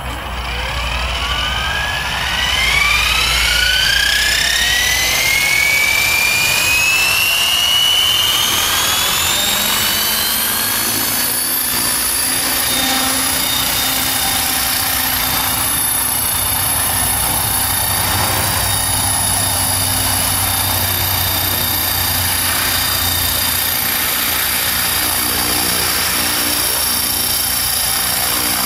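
Electric GAUI 550 RC helicopter spooling up: its motor and gears whine, climbing steadily in pitch over about the first ten seconds as the rotor comes up to speed. It then holds a steady whine with rotor noise as it hovers and flies.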